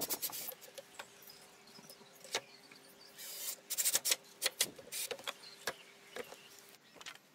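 Cordless drill driving screws into pine through a cast-iron bench frame in short bursts, mixed with clicks and knocks of the metal frame and wood being handled.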